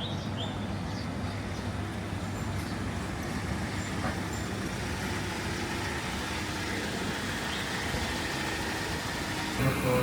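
Steady urban road traffic noise: cars and other vehicles running by on a city street.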